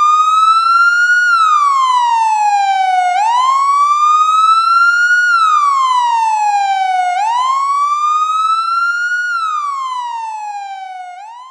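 Emergency-vehicle wail siren, its pitch climbing for about two seconds and falling for about two, three times over, then fading away near the end.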